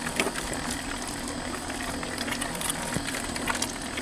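Small electric dough mixer kneading stiff biga dough as water is added little by little: the motor runs with a steady hum while the dough makes irregular clicks and slaps against the bowl. It is the sound of the gluten building, which the pizzaiolo calls "the sounds of love".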